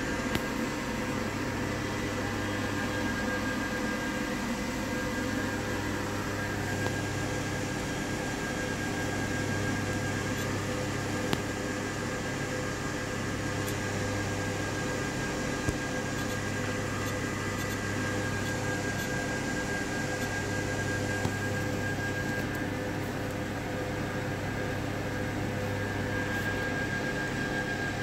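Steady machine hum with a fan-like whirr and a few steady tones, broken by three or four short faint clicks.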